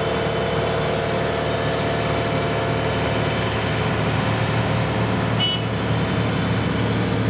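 The engine of road-paving machinery running steadily at constant speed, with a brief high tone about five and a half seconds in.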